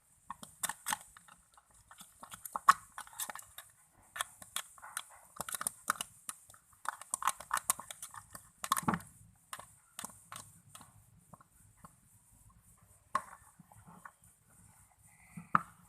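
Very sticky, runny slime being handled and poured into a container, making irregular wet clicks and pops. They come thick and fast for about ten seconds, then only a few.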